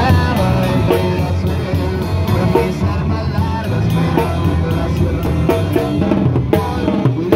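Live dance music amplified through PA speakers: a steady drum-kit beat of about four hits a second over a running bass line.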